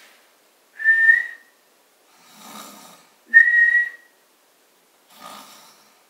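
A person whistles a short single note, about half a second long, three times. Each whistle alternates with a quieter snore, a whistle used to make the snorer stop.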